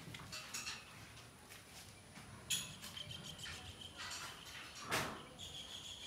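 Faint scuffs and knocks of someone walking and handling the camera, with an insect's steady high-pitched chirping coming in about halfway through.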